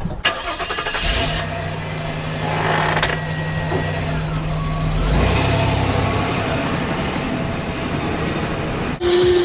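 Small go-kart engine starting with a ragged clatter, then running with a steady note that changes about five seconds in. Music cuts in abruptly near the end.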